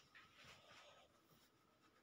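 Faint scraping and soft clicks of a metal fork mashing ripe red banana against a glass bowl, mostly in the first second.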